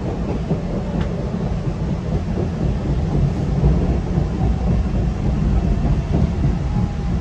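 Inside a new MBTA Red Line subway car running through the tunnel: a steady, loud low rumble of the train on the rails, with a faint click about a second in.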